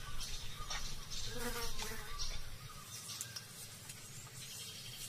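Soft clicks and rustles of a leopard cub feeding on a carcass, mostly in the first couple of seconds, over a faint high buzzing.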